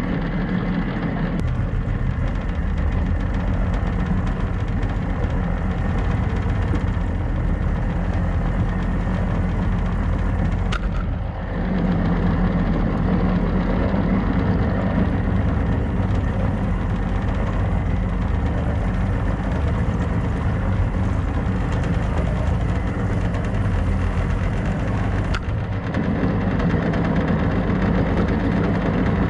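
Small boat's engine running steadily under way, with water rushing along the hull.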